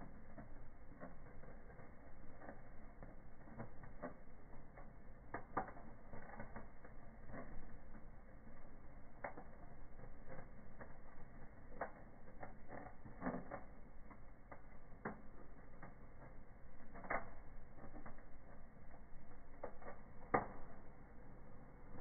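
Wood fire in a fireplace crackling, with irregular sharp pops every few seconds, the loudest near the end.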